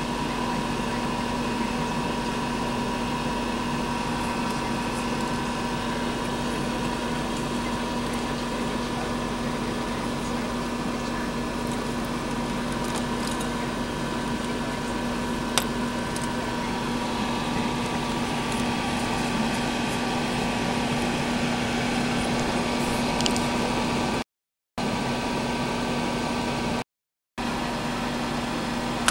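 Steady machine hum with a constant low tone and a higher whine over a noisy drone. It cuts out twice briefly near the end.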